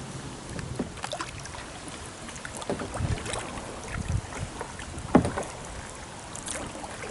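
Canoe paddling: the paddle dipping and splashing in the water, with irregular small knocks and one louder knock about five seconds in.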